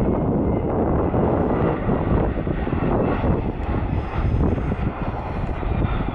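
Embraer 175 regional jet passing low in the landing flare, its two General Electric CF34-8E turbofans running with a faint high whine, under heavy wind rumble on the microphone.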